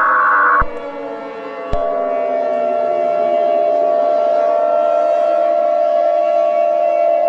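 Emergency-alert-style warning sounds. A burst of screeching data-header tones cuts off just under a second in. After a click, a steady alert tone starts, with a siren gliding down and then back up beneath it.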